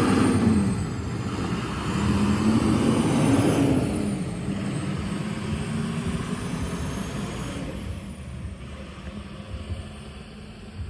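A motor vehicle's engine pulling away, its pitch rising and dropping twice as it gathers speed, then fading steadily as it drives off.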